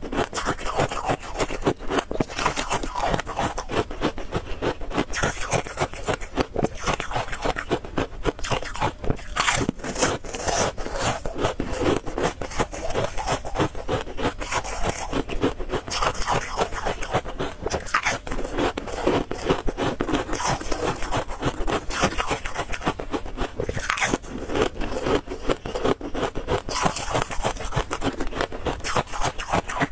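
Thin flakes of ice being bitten and chewed close to the microphone, a continuous rapid crackling crunch.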